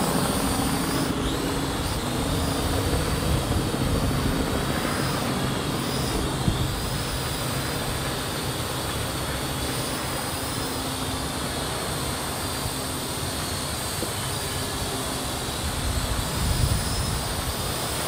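Parrot AR.Drone 2.0 quadcopter's four electric rotors running in flight: a steady whine whose pitch wavers up and down as the drone is steered.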